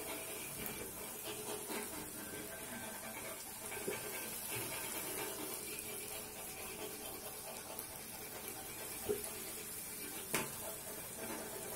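Golgappa puris deep-frying in hot oil in a kadhai, a steady sizzling hiss as they are dropped in and stirred, with a few light knocks.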